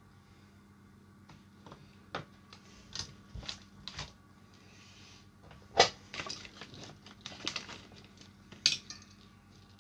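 Small hard clicks, taps and knocks as a small circuit board is handled and clamped into a plastic PCB holder. They come irregularly from about two seconds in, with the sharpest click near six seconds and another near the end.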